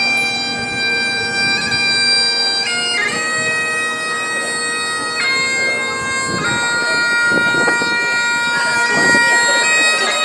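Bagpipes playing a melody of held notes over a steady drone.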